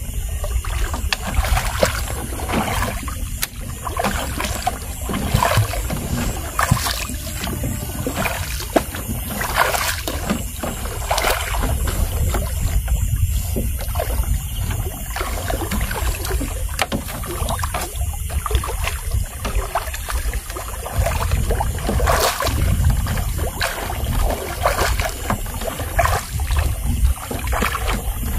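Trammel net being hauled in by hand from a small boat: irregular splashes, drips and knocks against the hull over a steady low rumble.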